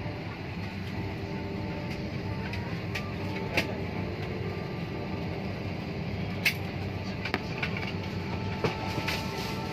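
Steady low hum of an airliner cabin parked at the gate, its ventilation running with the engines off. A handful of sharp clicks and knocks from inside the cabin sound over it, the loudest about three and a half and six and a half seconds in.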